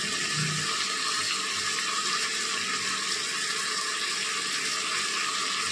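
Chicken pieces and potato wedges sizzling in masala in an aluminium pressure cooker: a steady, even hiss.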